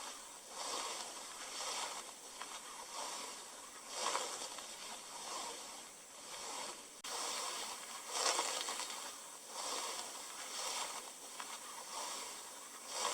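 A soft rushing hiss that swells and fades over and over, about once a second, with a stronger swell about every four seconds.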